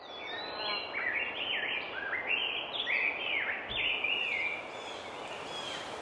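A bird singing, a run of short whistled phrases that sweep down and up in pitch about twice a second, over a steady background hiss. The song thins out after about four seconds.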